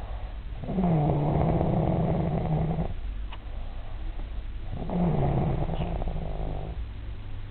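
Man snoring in his sleep: two long snores of about two seconds each, a couple of seconds apart, with quieter breathing between.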